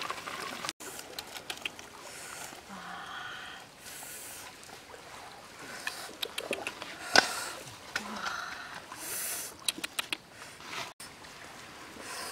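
Hands handling and breaking apart crispy grilled fish, making scattered crackles and clicks, with one sharp click about seven seconds in.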